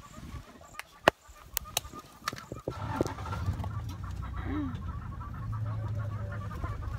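A bird calls in a rapid, even run of short repeated notes, with a few sharp knocks in the first three seconds. About three seconds in, the low, steady rumble of the open safari vehicle's engine comes in and runs on.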